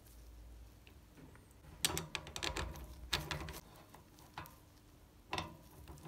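Irregular small metal clicks and taps from a bicycle rear hub's axle and cone being fitted by hand into the hub shell, a quick run of them about two seconds in and a couple more later.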